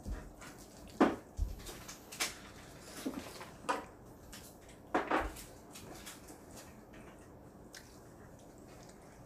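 Children slurping jjajangmyeon noodles with chopsticks: a handful of short, separate slurps and eating noises.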